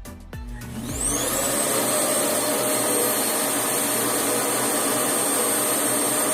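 REVAIR reverse-air hair dryer switched on about a second in: its motor whine rises as it spins up, then it runs steadily with a loud rush of air and a high whine on top. Before it starts, background music with a thumping beat fades out.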